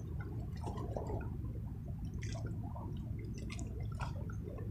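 Fast-flowing floodwater of a swollen river rushing past the bank, a steady low rumble, with a few short faint rustles and clicks on top.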